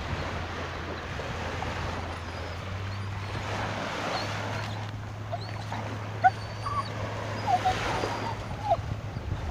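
A dog whimpering, a few short high whines in the second half, over wind noise on the microphone and a steady low hum.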